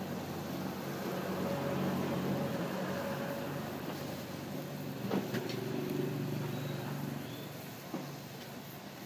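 A motor vehicle engine running steadily amid street noise, with a short sharp click about five seconds in.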